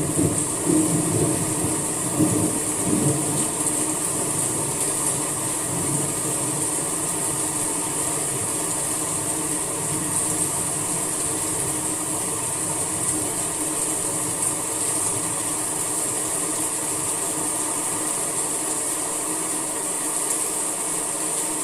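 Steady rain falling, an even hiss throughout, with a low rumble in the first few seconds.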